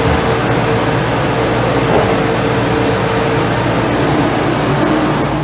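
Hollymatic 3000 mixer grinder running under load, its motor and auger feeding meat out through the grinder plate: a loud, steady mechanical hum with a constant whine.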